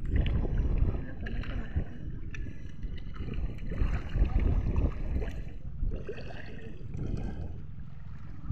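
Shallow seawater sloshing and gurgling around a person's legs as she wades, with wind buffeting the microphone in uneven low rumbling gusts.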